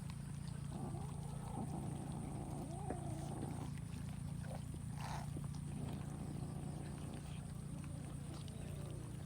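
Cats eating, with small scattered clicks and cat vocal sounds (wavering sounds between about one and four seconds in, and a short one about five seconds in), over a steady low hum.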